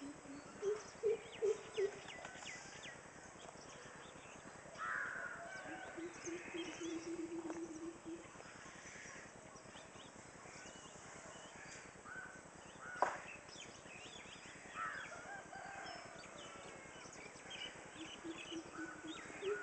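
Birds calling at intervals: short runs of pulsed low calls and some higher calls, with one sharp click about 13 seconds in.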